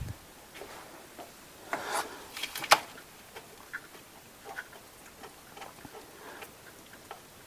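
Light metallic clicks and rubbing from a power steering line fitting being worked off the pump by hand, with a short run of sharper clicks about two to three seconds in.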